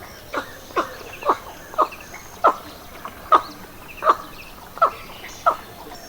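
Indian pond heron calling: a run of about nine short, harsh croaks roughly every two-thirds of a second, each falling in pitch. Faint chirps of other small birds sound behind.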